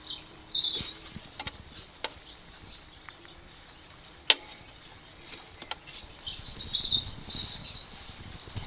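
Small birds chirping in short twittering phrases near the start and again in the last few seconds, with scattered light clicks and one sharp click about four seconds in.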